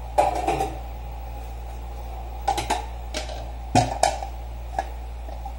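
Clean dishes being handled and set down on a counter: a series of sharp clacks and clinks of bowls and lids knocking together, about six in all, over a steady low hum.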